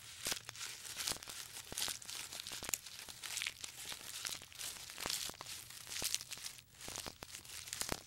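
Giraffes browsing on leafy branches: irregular rustling and crackling of leaves and twigs as they are pulled and stripped.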